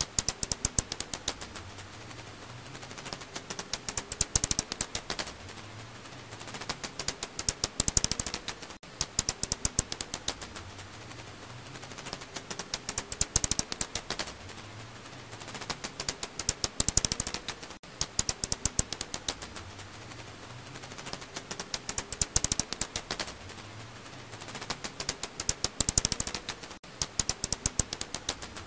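Recorded calls of the black house bat (검은집박쥐, Hypsugo alaschanicus) as rapid trains of dry clicks, swelling into dense, louder bursts about every four to five seconds.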